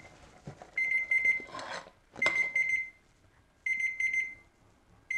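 An electronic alarm beeping: short bursts of rapid, high-pitched beeps, repeating about every second and a half. A brief scrape sounds between the second and third bursts.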